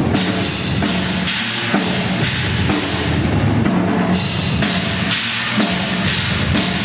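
Loud band music driven by a drum kit, kick drum and strokes keeping a steady beat throughout.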